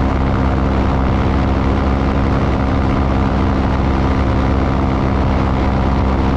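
Engine and propeller of a small open light aircraft running steadily in flight, a constant hum with a rush of air over it.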